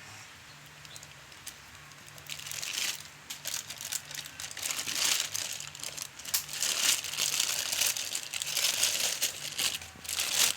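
Plastic crinkling and rustling in irregular bursts, busier from a few seconds in, as plastic wrapping or bagging is handled.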